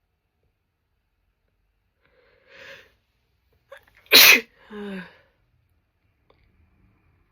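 A woman sneezes once, loudly and suddenly, about four seconds in. A short breathy intake comes before it, and a brief voiced sound that falls in pitch trails right after.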